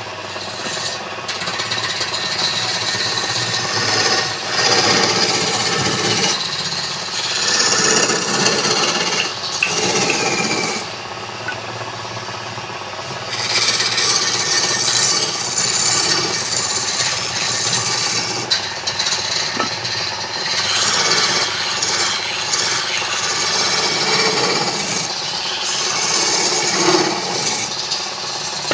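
A tool scraping and rasping against wood, continuous with uneven loudness.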